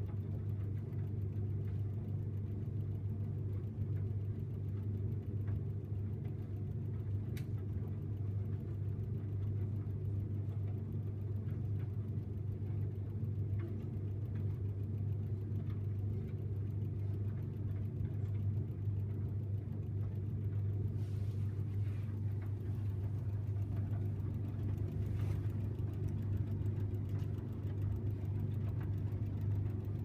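1984 Parnall Autodry tumble dryer running, its motor and drum giving a steady low hum that does not change.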